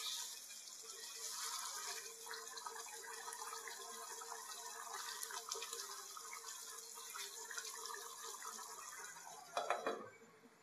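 Chicken curry gravy bubbling and sizzling in a pan as a wooden spatula stirs through it, with many small wet pops. Near the end, a single loud knock as a glass lid is set on the pan, after which the sound grows quieter.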